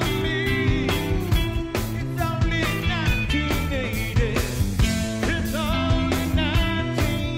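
Live rock band playing: electric guitar, bass and a steady drum beat, with a man singing the lead vocal over it.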